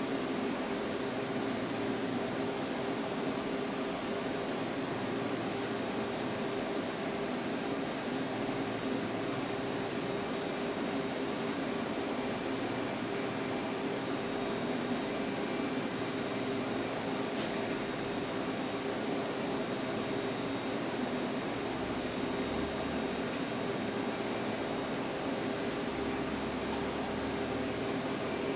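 TIG welding arc on thin mild steel tubing, a steady hiss with a constant hum and a thin high whine from the inverter welder.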